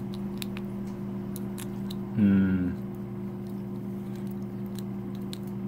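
Faint scattered clicks and crackles of cooked Dungeness crab shell being pulled apart and picked at with a toothpick, over a steady low hum. A short voiced murmur comes about two seconds in.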